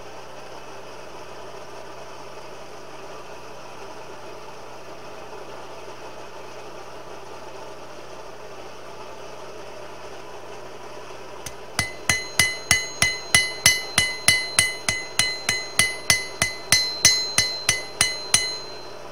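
A steady hum, then from a little past the middle about seven seconds of quick hammer blows on a hot spring-steel knife blade over an anvil, roughly four ringing strikes a second. This is the blade being flattened out to its final shape.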